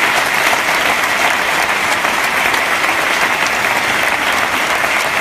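A large audience applauding, many hands clapping at once in a steady, even clatter.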